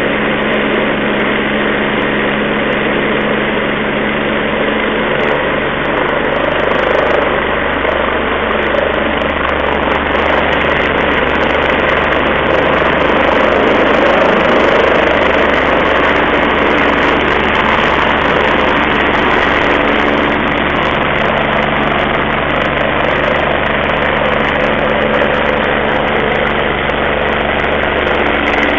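Rescue helicopter lifting off, its engine and rotor running steadily, growing a little louder around the middle as it rises. The sound is thin, as recorded on an old mobile phone.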